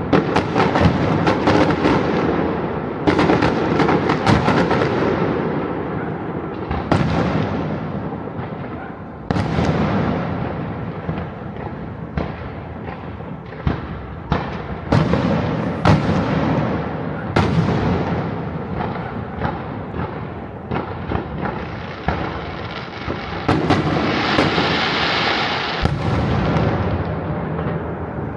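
Bonfire Night fireworks going off across the city: a steady run of overlapping bangs and echoing booms over continuous crackling, with a longer hissing stretch about three-quarters of the way through.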